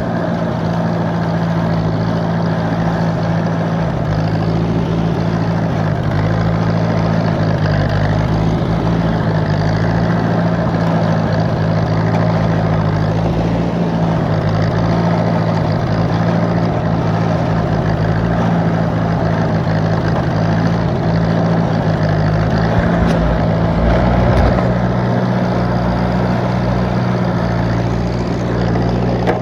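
Tractor engine running steadily under load, its pitch stepping up slightly about 24 seconds in.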